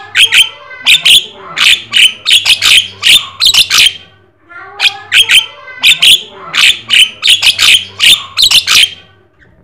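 Javan myna (jalak kebo) calling loudly in a fast run of sharp, harsh notes. The notes come in two long bursts with a short break about four seconds in.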